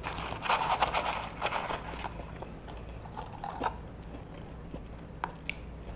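Paper fries carton rustling as fries are pulled out of it for about two seconds, then a few soft clicks of chewing.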